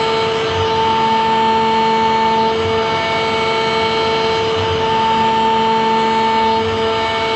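Spindle of a three-head CNC wood router running, a steady whine of several fixed tones over a constant rushing noise, with a higher tone swelling and fading every couple of seconds.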